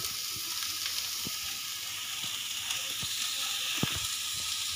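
Sliced onions and bell peppers sizzling steadily in hot oil in a nonstick frying pan, with a few light taps of a wooden spatula as they are stirred.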